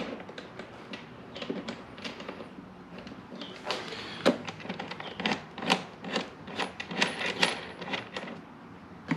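Irregular sharp metallic clicks and clinks of hand tools and hardware while the rear tank's mounting bolts and penny washers are being fitted, coming thickest in the second half.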